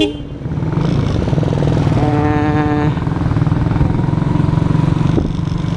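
Motorcycle engine running steadily while riding at an easy pace. A steady pitched tone sounds for about a second, two seconds in.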